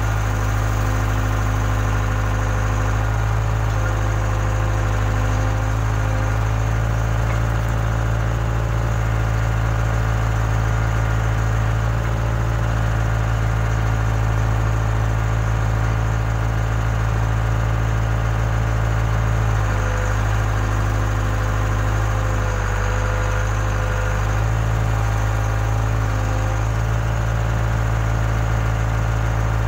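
Case 580K backhoe loader's four-cylinder diesel engine running steadily at a constant speed, its pitch dipping slightly around twenty seconds in and again a few seconds later as the hydraulics take load.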